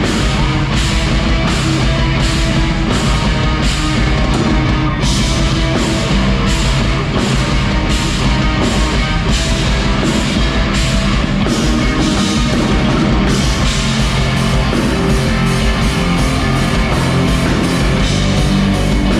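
Rock band playing live and loud, with a steady drum beat under dense amplified instruments. The drumming shifts pattern about five seconds in and picks up to quicker hits near the end.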